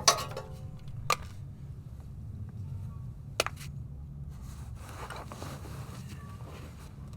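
Small metal parts and tools being handled: a sharp metallic clink with a brief ring, two more clicks, then softer scraping, over a steady low background hum.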